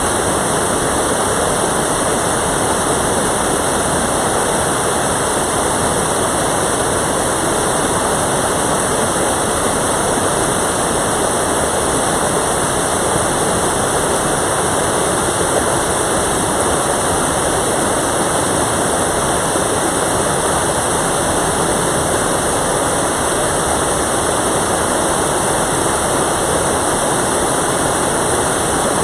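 Mountain valley stream rushing over rocks close to the microphone: a steady, loud rush of water that does not change.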